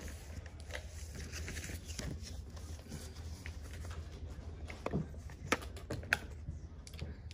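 Scattered light clicks of typing on a computer keyboard at a desk, with two sharper clicks a little after five and six seconds in, over a steady low room hum in a small office.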